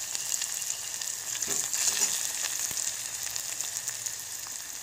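Hot oil sizzling steadily in a kadai, with a tempering of mustard and cumin seeds, green chilli and garlic frying in it and fine crackles throughout; a little louder about two seconds in.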